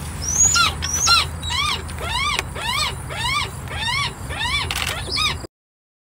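A small hawk in the hand calling over and over, about two rising-and-falling cries a second, the agitated noise these birds make when handled. The sound cuts off abruptly near the end.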